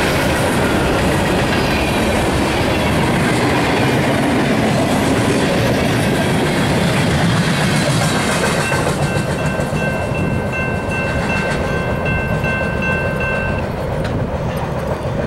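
Freight train boxcars rolling past, with steady wheel rumble and clickety-clack on the rails that eases off near the end as the last cars go by. From about nine seconds in, a level-crossing warning bell dings in a fast, even repeat for about five seconds, then stops.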